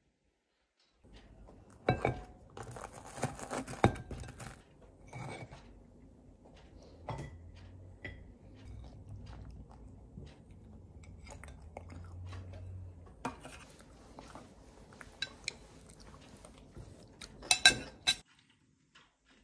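Fork and knife clinking and scraping on a ceramic plate while a meal is eaten, with some chewing. The clatter starts about a second in, is busiest near the start, comes again in a sharp cluster near the end, then stops.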